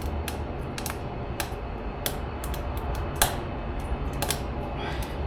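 Irregular sharp clicks and taps from cooking gear being handled, about two or three a second, over a low steady rumble.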